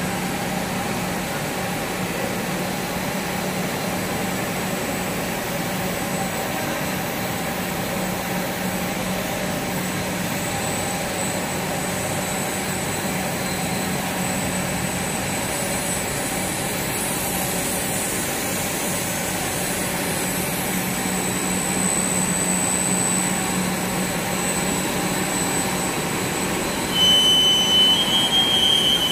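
Plastic film extrusion line running: the extruder, blower and film winding rollers make a steady machine noise with a steady hum. A high-pitched electronic tone comes in near the end.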